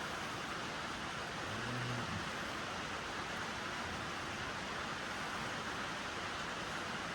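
Steady, even hiss of background noise in a barn, with a brief low hum about a second and a half in.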